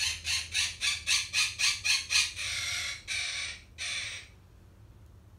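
Pet parrot squawking in a fast run of short, harsh calls, about four a second. Three longer screeches follow, and the calling stops about four seconds in.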